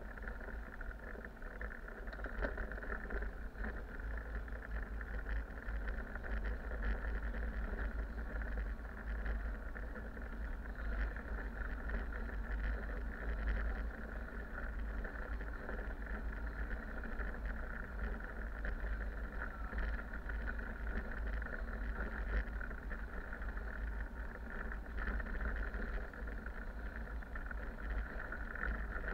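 City bus driving along a road, heard from inside the driver's cab: a steady low engine and road rumble with a constant higher drone and occasional faint clicks.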